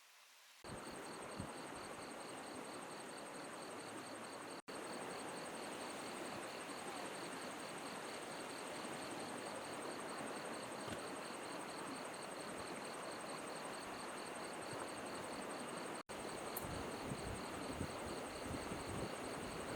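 Insects, crickets or similar, trilling steadily in a fast high pulse over the even rush of a flowing river. The sound starts just after the opening and drops out for an instant twice.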